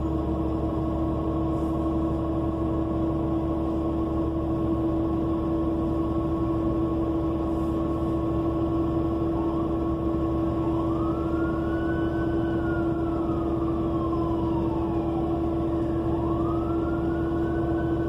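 Steady hum and drone of a New Flyer C40LF natural-gas bus's John Deere engine heard from inside the cabin. From about halfway in, an emergency-vehicle siren wails outside, its pitch sweeping slowly up and down twice.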